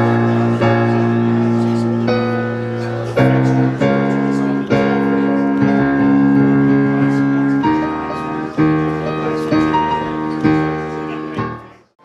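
Piano playing slow, full chords, each struck and held to ring on, fading out just before the end.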